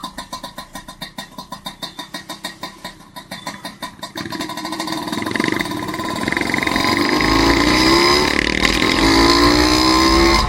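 Motorcycle engine idling with an even pulse of about seven beats a second, then growing louder as it pulls away, its pitch rising twice as it accelerates.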